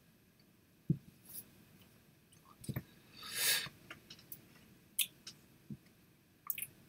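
Quiet mouth, breath and handling sounds of a person close to the microphone: a few soft clicks and low knocks, and one breath about three and a half seconds in.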